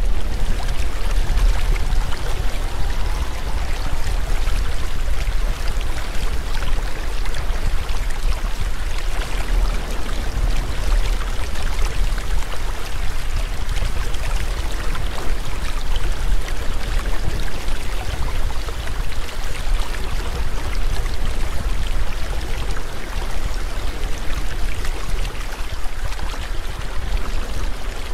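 Steady rushing water, with a deep low rumble beneath it.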